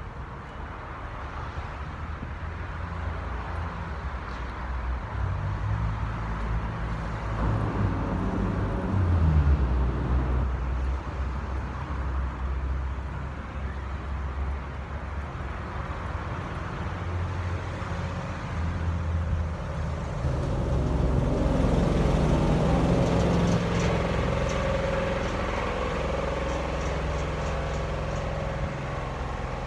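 Street traffic: motor vehicle engines running and passing close by, a low rumble that shifts in pitch and swells louder twice.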